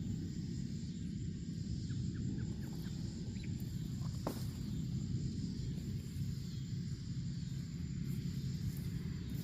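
Steady low outdoor rumble, with a few faint short chirps about two seconds in and a single click a little after four seconds.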